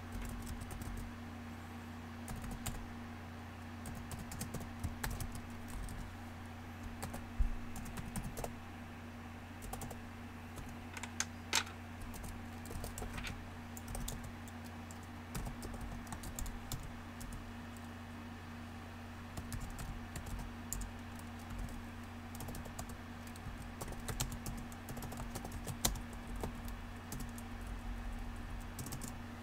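Typing and clicking on a computer keyboard in irregular runs of keystrokes, picked up by a desk USB microphone, over a steady low hum.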